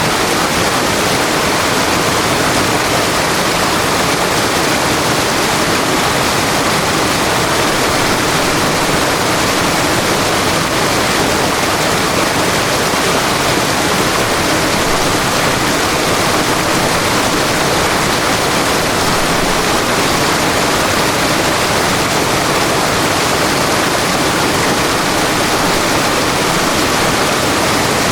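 River water flowing, a steady, unbroken rushing.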